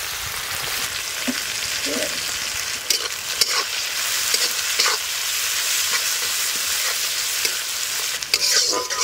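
Sliced onions frying in hot oil in a kadai, with a steady sizzle. A spatula stirs and scrapes the pan now and then.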